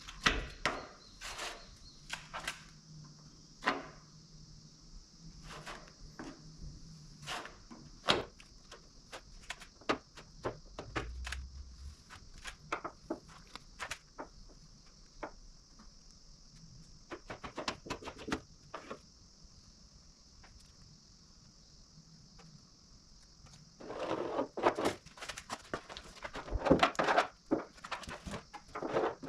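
Scattered light clicks and knocks of tools and materials being handled, then, about three quarters of the way in, hand sanding of cured body filler in rough back-and-forth strokes.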